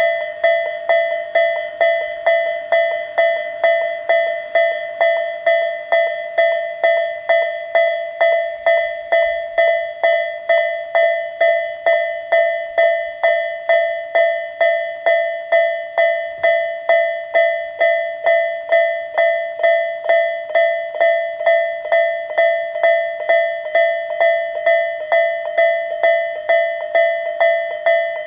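Japanese railway level crossing warning alarm ringing its 'kan-kan' dings at a steady pace of just under two a second, each ding struck sharply and fading before the next: the crossing is warning that a train is approaching.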